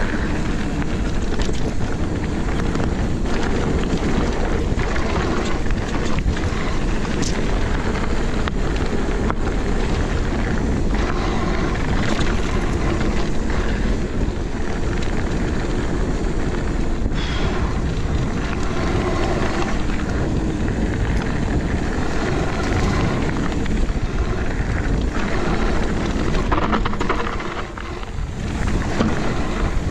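Mountain bike ridden fast down a dirt trail, heard through a bike- or body-mounted action camera: steady wind rumble on the microphone, with tyre noise and frequent short rattles and knocks over bumps. The noise dips briefly near the end.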